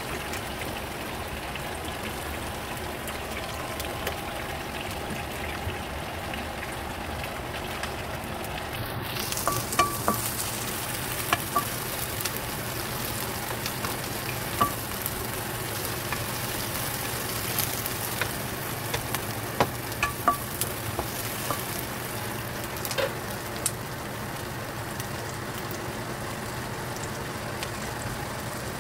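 Sliced onions sizzling in hot oil in a pan, a steady hiss that grows brighter about nine seconds in. A wooden spoon stirs them, with scattered knocks and scrapes against the pan through the middle.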